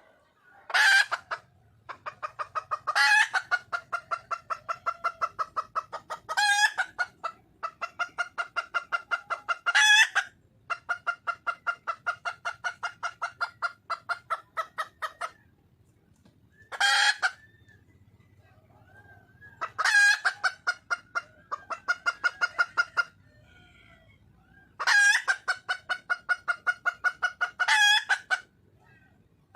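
A junglefowl hen clucking in long, fast runs of several clucks a second, broken by loud squawking calls about every two to four seconds. This is the call a wild hen makes when calling for a mate.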